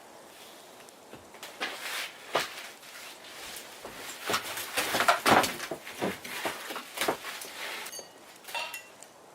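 Irregular knocks, rustles and clatter of gear being handled, busiest in the middle, with a couple of brief metallic rings near the end.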